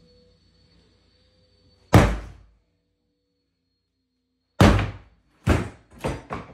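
Sledgehammer blows smashing a wooden desk: a single heavy thud about two seconds in, then four thuds in quick succession near the end, each a little quieter than the one before.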